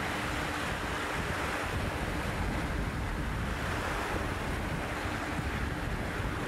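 Choppy bay waves breaking and washing over shoreline rocks in a steady surf, with wind buffeting the microphone.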